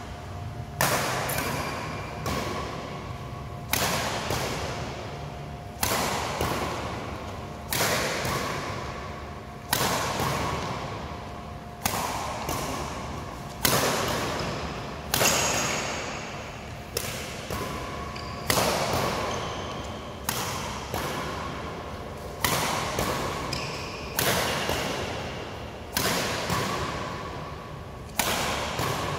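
Badminton rackets striking a shuttlecock back and forth in a rally, a sharp hit about every two seconds, each one ringing on in the echo of a large hall.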